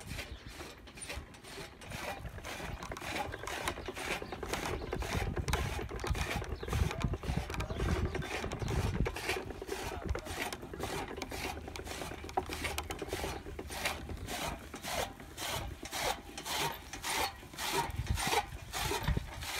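Bull-driven gear and shaft working a toka chaff cutter: a steady, even rasping clatter of about two to three strokes a second.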